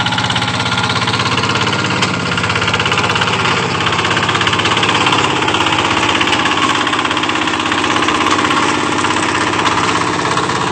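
Engine of a rice-paddy farm machine running steadily at a rapid, even beat.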